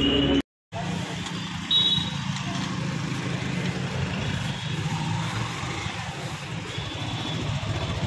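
Yamaha FZ motorcycle engine idling steadily amid street noise, with a short high beep about two seconds in.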